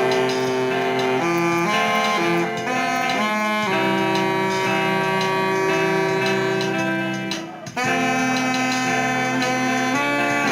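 Church orchestra playing an instrumental hymn in long held chords, with a brief break between phrases about seven and a half seconds in.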